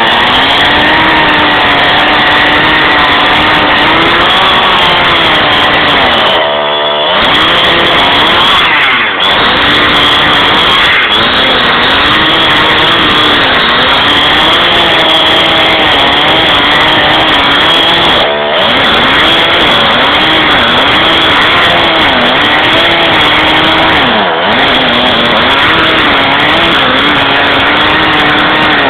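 Two-stroke chainsaw running at high revs while cutting into a tree trunk, its engine note wavering up and down as the chain bites under load. A few times it drops briefly in revs and picks up again.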